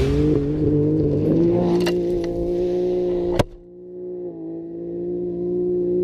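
An off-road race vehicle's engine running at high, steady revs as it comes down a dirt road. About three and a half seconds in there is a sharp click, the rough noise drops away, and a steady hum goes on, swelling and then fading.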